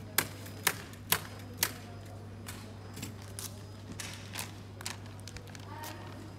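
Footsteps of hard-soled shoes clicking on a hard floor, about two steps a second. They are loud in the first couple of seconds, then fainter and more scattered, over a steady low hum.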